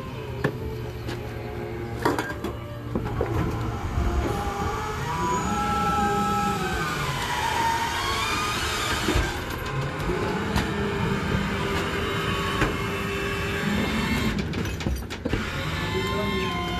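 Rear-loader garbage truck running its hydraulic packer. The engine pitch rises and falls several times as the packing cycle works, and trash cans knock against the hopper.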